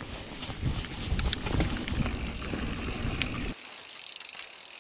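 Mountain bike rolling fast down a dirt trail: tyre rumble with the bike rattling and a few sharp clicks. About three and a half seconds in, the sound drops abruptly to a quieter, even hiss.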